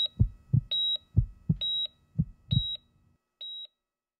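Heartbeat sound effect with heart-monitor-style beeps: low thumps repeating under a short, steady, high beep about once every 0.85 s. The thumps stop a little after three seconds in, and one last, quieter beep follows.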